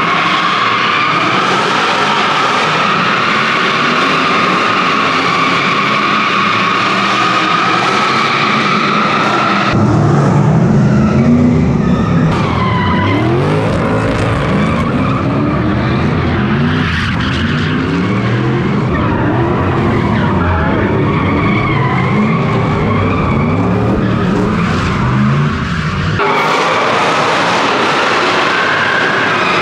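Drift car tyres squealing in one long, steady slide over the engine. About ten seconds in this gives way to the engine revving up and down again and again as the car is driven sideways, and the steady tyre squeal returns near the end.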